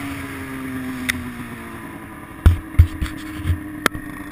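Ski-Doo 600RS snowmobile's two-stroke engine running, its pitch easing down over the first two seconds and then holding steady. About halfway through, a few loud thumps and knocks cut in over it.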